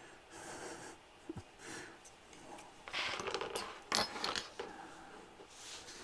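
Small hard parts of an RC drift car kit clicking and rattling as they are handled, with a cluster of sharp clicks and a knock from about three to four and a half seconds in, between soft rustles.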